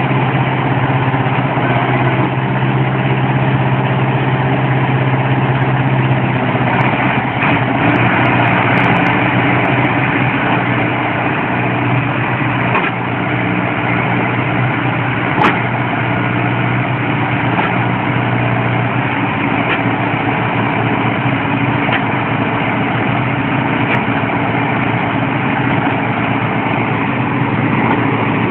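Zetor tractors' diesel engines running hard while the tractors are stuck in deep mud, one towing the other by a chain. The engine note changes around the middle, and a sharp click sounds a little after halfway.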